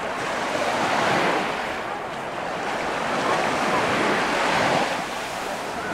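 Sea waves breaking on the shore, the wash swelling twice: about a second in and again around four to five seconds.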